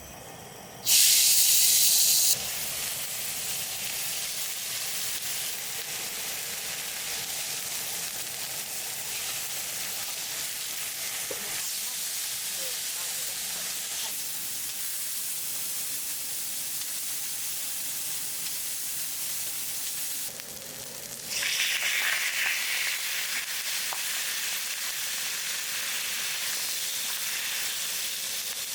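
Food sizzling and frying steadily on a hot grill pan, with a loud burst of sizzle about a second in that lasts a second or so. After a short dip about twenty seconds in, the sizzling comes back louder.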